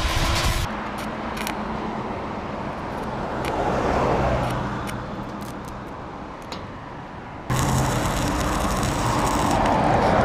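Angle grinder grinding rust off a steel gate post to clean a spot for welding. About seven and a half seconds in, the sound switches abruptly to the crackle of a stick-welding arc tacking a steel hinge to the post.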